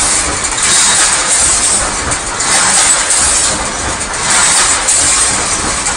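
Automatic welded wire mesh production line running: a loud, continuous hiss of machinery with a low rumble underneath, swelling every second or two as the line cycles.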